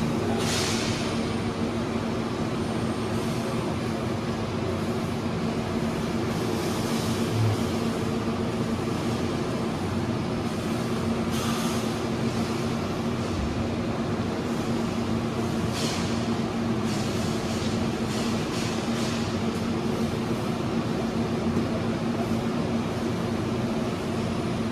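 Steady hum of running equipment, a machine drone with a few constant tones in it. A few brief soft rustles and handling noises come and go as wires and fibres are handled.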